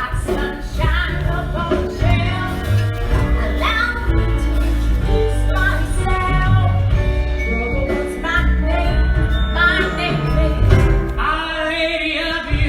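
A female singer performing a musical-theatre song over a band with a steady bass line.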